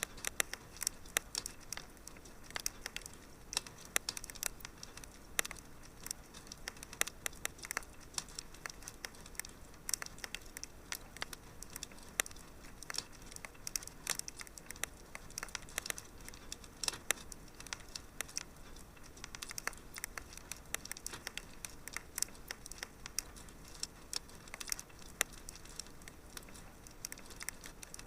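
Fire crackling in a fireplace: irregular sharp pops and snaps over a soft steady hiss.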